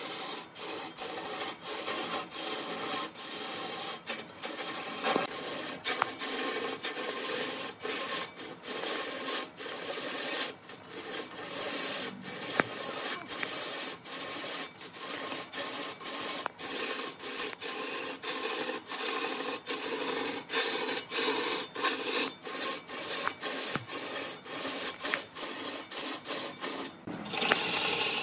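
A cutting tool scraping against wood spinning on a wood lathe: a continuous scraping noise broken by many brief gaps.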